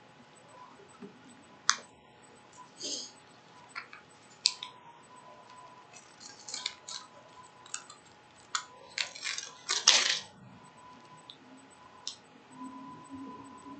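Scattered sharp clicks and light taps from small objects being handled, with a denser clatter and rustle about nine to ten seconds in, over a faint steady high tone.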